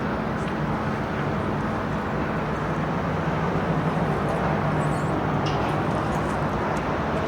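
Steady construction-site machinery noise: engines running with a low hum, and a few faint clicks and clinks.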